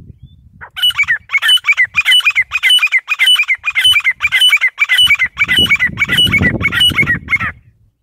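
Caged grey francolin (teetar) calling: a loud run of shrill, repeated notes, about two a second, for nearly seven seconds, starting just under a second in. A low rumble runs beneath the second half.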